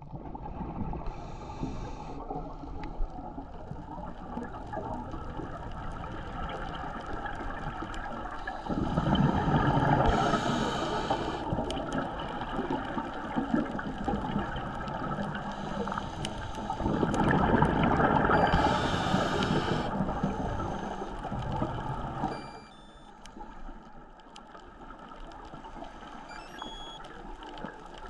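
Underwater sound of a scuba diver breathing through a regulator: two long rushing bursts of exhaled bubbles, about a third of the way in and just past halfway, with short hisses of inhaling, over a steady low rumble of the sea. It turns quieter near the end.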